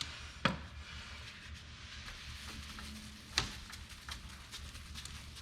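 Wet sanding pad rubbed by hand over a plastic headlight lens, a soft steady scrubbing hiss, with two sharp clicks, one shortly after the start and one about three seconds later.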